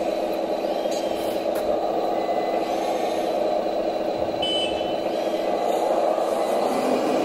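Steady simulated diesel engine running from a scale RC construction model's sound module, even in level throughout. A short high beep comes about four and a half seconds in.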